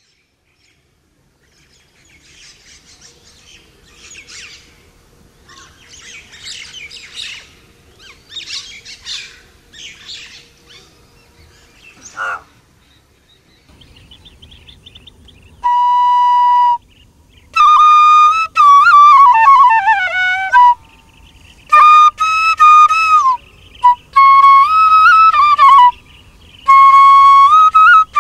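Small birds chirping and twittering for about ten seconds, ending in one louder falling call. A little past halfway a bamboo flute comes in, playing a slow, bending melody in breath-long phrases.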